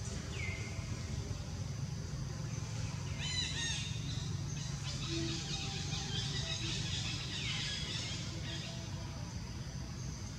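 Outdoor ambience: a steady low rumble under a constant high hiss, with short high chirping calls about half a second in, a quick run of them around three and a half seconds in, and another near the eight-second mark.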